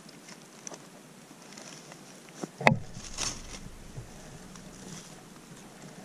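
A single rifle shot about two and a half seconds in, sharp and much louder than anything else, followed by a low rolling rumble of echo that fades over a second or two. Faint crackles of leaf litter come before and after.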